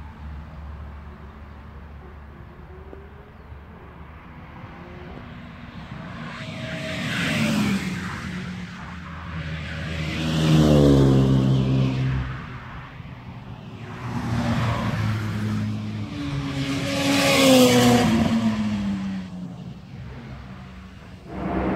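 A string of cars passing close by at speed, about four pass-bys one after another, one of them a Renault Mégane RS hatchback. Each engine note rises in loudness and falls in pitch as the car goes past; the loudest pass comes near the end.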